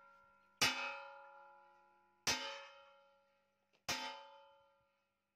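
Hammer striking the steel plow frame three times, about a second and a half apart, each blow ringing out with a long metallic tone that fades away.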